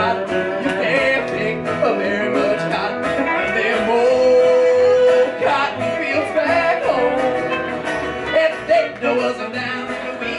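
Live country band playing electric guitar and upright bass, with a long held note about four seconds in.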